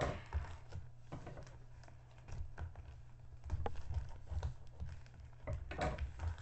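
A plastic mailer bag being cut with scissors and pulled open by hand: irregular snips, crinkles and rustles of the plastic.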